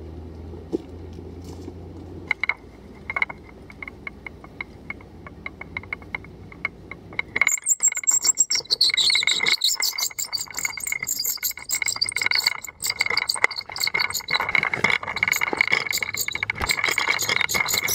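Pulley trolley running along a steel cable as a loaded bucket is hauled up by rope. A few scattered clicks give way, about seven seconds in, to dense metallic rattling and clinking with a steady high whine from the pulley wheel.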